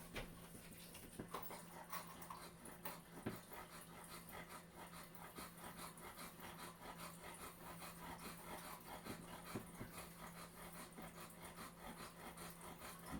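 Faint, rapid rhythmic panting over a low steady hum, with a few faint clicks.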